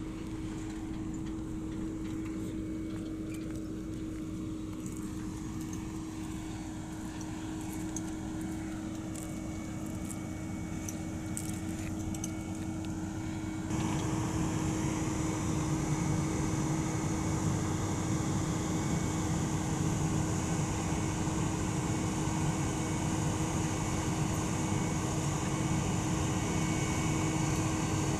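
Diesel engine of a Vögele tracked asphalt paver running steadily, a constant engine drone that gets abruptly louder about halfway through.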